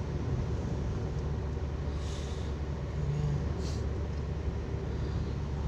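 Taxi car's engine and road noise heard from inside the cabin while driving: a steady low rumble, with a faint brief hiss about two seconds in and again a little later.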